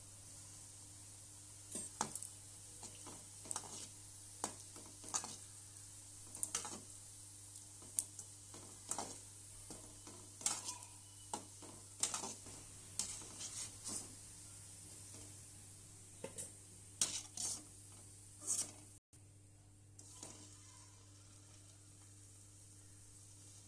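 A metal spoon scraping and clinking irregularly against a pan over a steady faint sizzle, typical of gulab jamun dough balls being turned while they fry. The clinks stop about nineteen seconds in, leaving only the sizzle.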